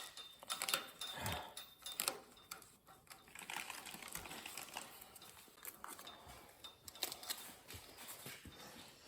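Masking tape being pulled off the roll and pressed down, a faint crackling with scattered sharp clicks.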